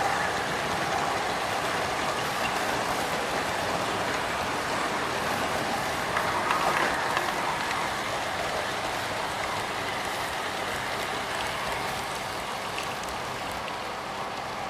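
Model freight train, with Roco models of 1044 and 1042 electric locomotives hauling refrigerator wagons, rolling along the track: a steady rattling hiss of many small wheels on the rails. It swells briefly about six seconds in and eases off a little near the end.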